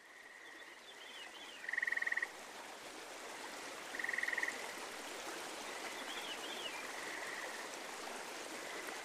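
A steady rushing noise like flowing water. Over it come short buzzy trills, each about half a second long, repeating every few seconds like frog calls, with a few faint chirps.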